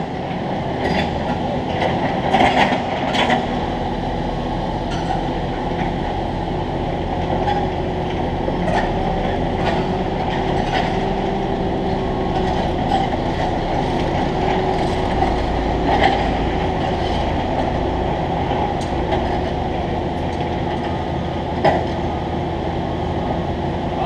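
A heavy engine running steadily with an even drone, with a scattering of short clicks over it, a few of them louder, about 2 to 3 seconds in, at the middle and near the end.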